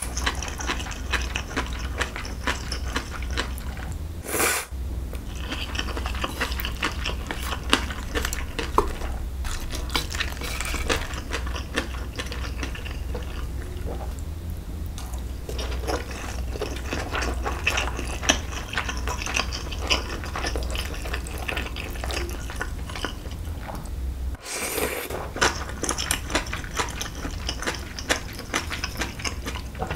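Close-miked eating sounds of Busan milmyeon cold wheat noodles and dumplings: wet chewing with dense little clicks and smacks, and longer slurps of noodles, one about 25 seconds in. A steady low hum runs underneath.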